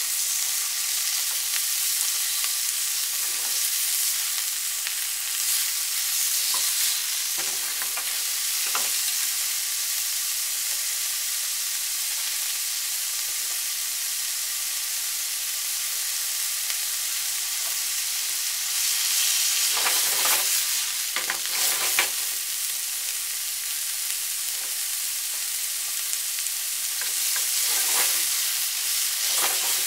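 Thinly sliced pork sizzling in oil in a nonstick frying pan, with short scrapes and knocks of wooden chopsticks stirring it now and then. The stirring gets busier and louder about two-thirds of the way through and again near the end.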